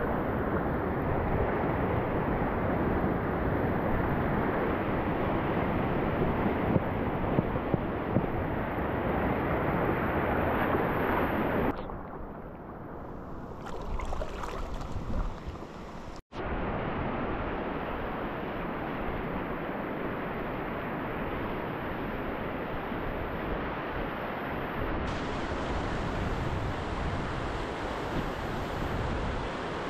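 Rushing water of a river rapid, a steady noise. About twelve seconds in it drops to a quieter stretch with a few light knocks, then cuts off for an instant and comes back steady.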